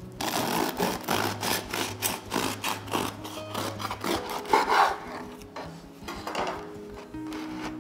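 A knife sawing back and forth through the crisp crust of a potato bread loaf on a wooden cutting board, about three rasping strokes a second, loudest a little after four seconds in, then a few softer strokes. Soft background music runs underneath.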